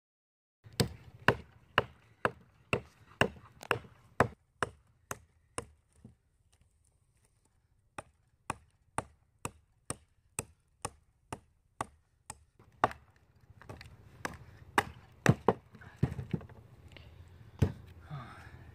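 Forged 80CrV2 steel knife chopping into an oak branch: a run of sharp wood-chopping strikes, about two a second, with a pause of about two seconds midway and a few more irregular blows near the end.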